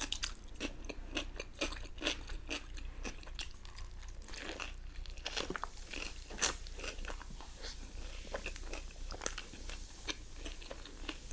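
Close-up mouth sounds of biting and chewing crispy fried food, with many short crunches throughout.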